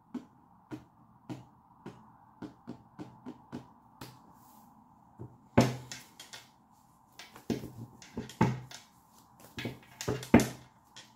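Tarot deck being handled and shuffled by hand: light clicks of cards about twice a second, then louder, quicker riffling and slapping of cards in the second half.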